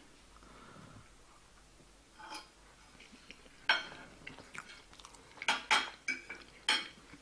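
Cutlery clinking against a plate as someone eats, a few sharp clinks spaced irregularly, most of them in the second half.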